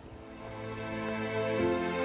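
Background music fading in: sustained chords that swell in loudness, with a change of chord about one and a half seconds in.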